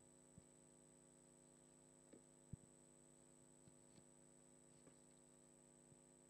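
Near silence: a steady electrical hum with a faint high whine from the microphone and sound system, and a few faint clicks, the loudest about two and a half seconds in.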